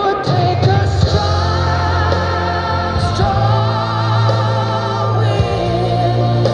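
Music with singing: long sung notes with vibrato over a steady bass.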